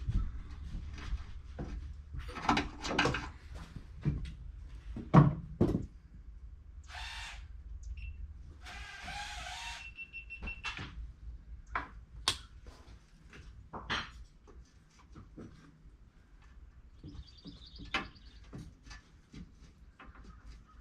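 Scattered knocks, clicks and scraping from hands-on repair work, the loudest knock about five seconds in. Two short rustling or tearing stretches come about seven and nine seconds in.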